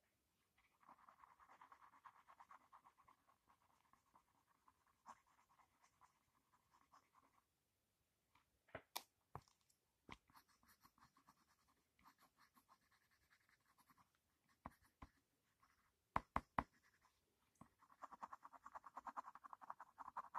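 Coloured pencil shading on drawing paper: rapid, faint scratching strokes, easing off in the middle and picking up again near the end. A few sharp clicks come around the middle.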